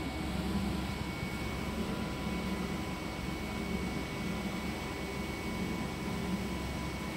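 KAIOU direct-to-garment (DTG) printer running, a steady machine hum with faint high tones and a low rumble that rises and falls.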